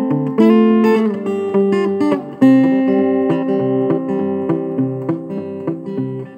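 Steel-string acoustic guitar fingerpicked in Travis style: a bass line alternating between low notes, with a picked melody above it.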